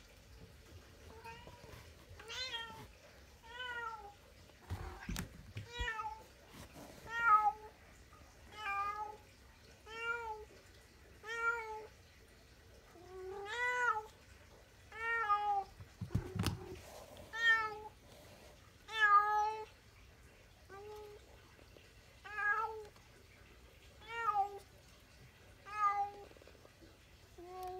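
A domestic cat meowing over and over, about twenty rising-and-falling meows roughly a second or so apart. A couple of soft thumps come about five seconds in and again near the middle.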